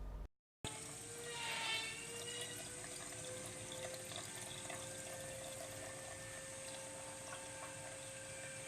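A moment of dead silence, then a filament extrusion line running steadily with a water-like rush, a humming tone that rises slightly over the first few seconds and then holds, and a brief whine about a second in.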